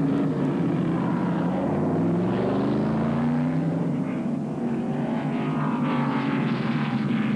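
NASCAR Winston Cup stock cars' V8 engines running flat out in a pack. Several engine tones overlap and slide up and down in pitch as the cars pass.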